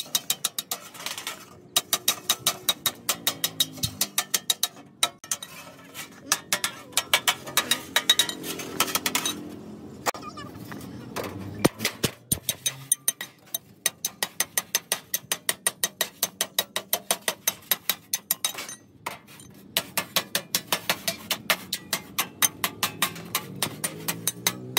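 Hand hammer beating a flat sheet, possibly metal, on a stone anvil block: fast, even, sharp clanking blows, about four a second, with a few short breaks.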